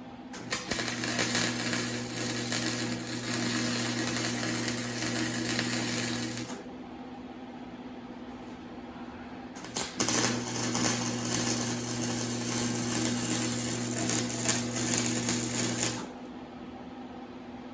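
Arc welding on exhaust pipe steel: two runs of crackling buzz over a steady hum, each about six seconds long, with a pause of a few seconds between them.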